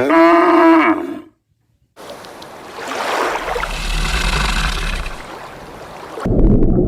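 Animal calls: a loud pitched call breaks off about a second in. After a short silence comes a long, rough, noisy call with a low rumble. Near the end another strongly pitched call starts.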